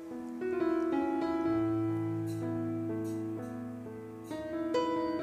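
Instrumental background music: piano-like keyboard notes struck one after another over held tones.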